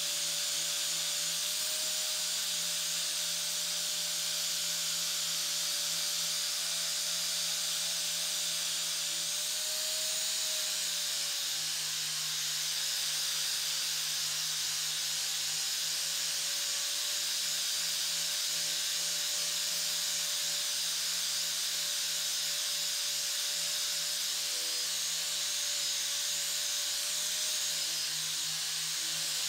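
Angle grinder with a red abrasive disc running steadily against an aluminium camera housing, a steady motor whine that wavers slightly in pitch over the hiss of the disc rubbing the metal.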